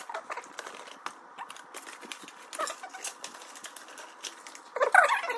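Light scattered clicks and taps of small plastic building bricks on a table, then near the end a louder squeaky, whining cry.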